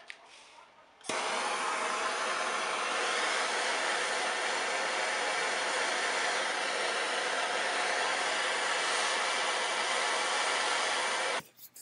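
MAPP gas hand torch burning with a steady hiss as its flame heats a steel tube for brazing; the hiss starts suddenly about a second in and stops suddenly near the end.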